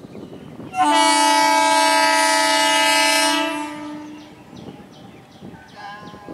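Horn of an ICF electric multiple unit local train sounding one long, steady, loud blast of about three seconds that then fades away. Near the end there is a faint run of quick clicks.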